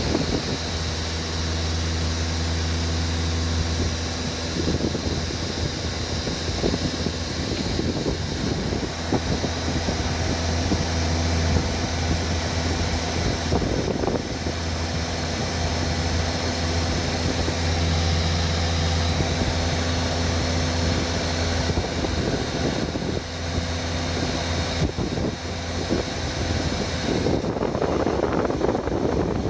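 Steady low hum of a running vehicle engine with a fan's whirr over it, with a few faint knocks.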